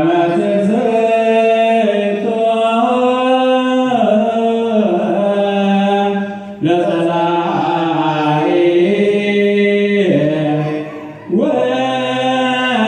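Ethiopian Orthodox liturgical chant, the misbak (the psalm verse sung before the Gospel), in long held phrases that step slowly in pitch, with short pauses about six and eleven seconds in.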